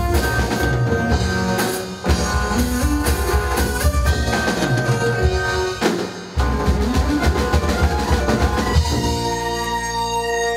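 Live progressive rock band playing an instrumental passage on drum kit, electric guitars, bass and keyboards. The music drops out briefly twice, about two and six seconds in, and near the end a chord is held.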